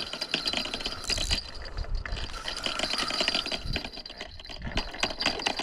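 Fishing reel whirring with rapid fine clicking, the gear or drag working while a hooked carp is played.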